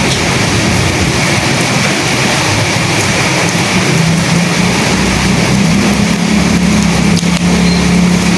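Steady heavy rain with wind, a dense even hiss; about halfway through, a low rumble rises under it and holds.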